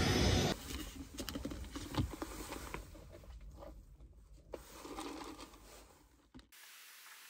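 Soft rustling of clothing and small clicks and taps as a person shifts in a car seat and handles a drink bottle and a phone. A louder sound from the previous shot cuts off about half a second in, and everything drops to near silence near the end.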